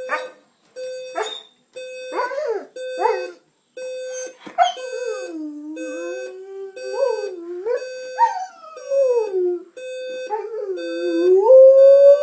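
Electronic alarm clock beeping over and over at one steady pitch, about once a second, while a dog howls along with it: a few short yips in the first five seconds, then long howls that slide up and down in pitch, the last one rising near the end.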